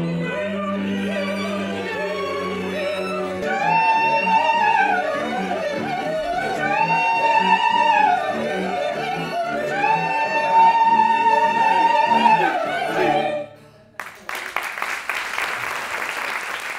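A group of voices singing a contemporary opera's closing music, in three long phrases that each climb to a held high note and fall back. The music stops about 13 seconds in, and about a second later an audience breaks into applause.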